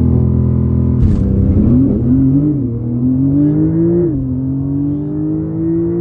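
Porsche 911 Turbo S twin-turbocharged flat-six at full-throttle acceleration down a quarter mile. Its pitch climbs steadily and drops sharply at three quick upshifts, about 1, 2.5 and 4 seconds in.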